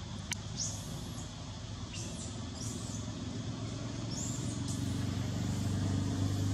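A motor vehicle's engine running nearby, a steady low hum that grows louder toward the end, with a few short high chirps over it.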